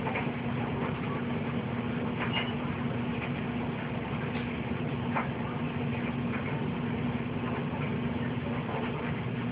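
Steady background hum with a constant low droning tone, and a few faint clicks scattered through it.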